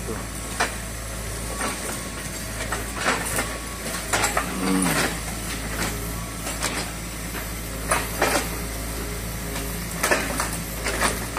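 Kobelco mini excavator's diesel engine running steadily while its bucket loads and presses trash and demolition debris into a dump truck's bed, with repeated knocks and clatters every second or two and a brief creak near the middle.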